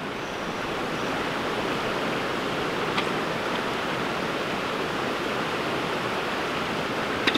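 Fast-flowing river water running over rocks, a steady rushing noise that fades in over the first second. A faint click about three seconds in and another near the end.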